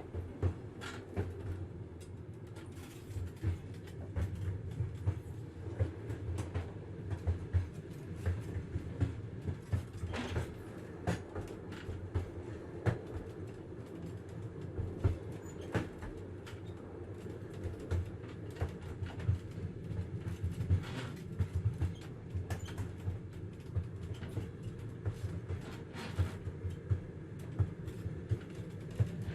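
Inside a moving train carriage: a steady low rumble of the running train, with sharp clacks and knocks from the wheels and car coming several times a second at irregular intervals.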